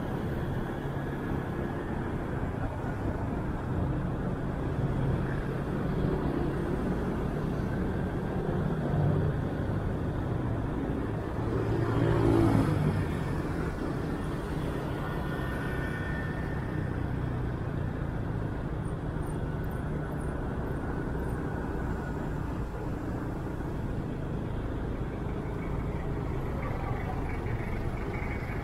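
Motorcycle riding in city traffic: the bike's engine running steadily with road noise and the sound of surrounding cars and scooters. About twelve seconds in the noise swells louder and then falls back.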